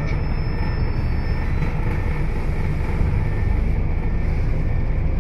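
Scania L94UB city bus heard from inside the passenger cabin while it drives: its diesel engine's steady drone mixed with road and tyre noise.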